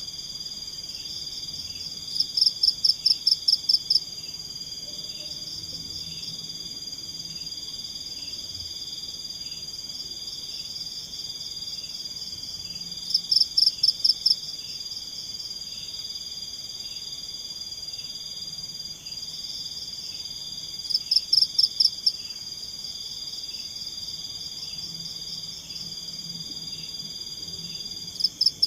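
Night forest chorus of insects and frogs: a steady high trill with a softer, regularly pulsing call beneath it. Four times, about every eight seconds, a louder burst of rapid notes rises over it, each about eight notes in a second or two.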